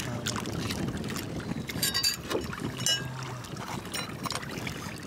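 Scattered sharp clicks and scrapes of oyster shell as a hand pries a live oyster open, over a low steady hum.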